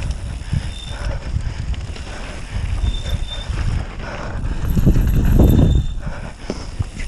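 Mountain bike rolling fast down a rough, muddy trail: the frame and chain rattling and knocking over the bumps, with tyre rumble. It gets louder and rougher about five seconds in.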